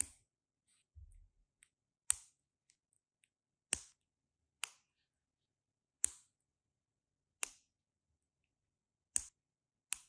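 Sharp plastic clicks from a keyboard stabilizer's housing and stem being worked between the fingers, about eight single clicks spaced irregularly a second or two apart.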